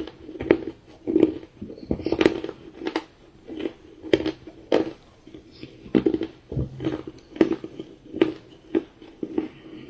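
A person chewing and biting dark chocolate pie, a run of irregular mouth clicks and soft chewing sounds about once or twice a second.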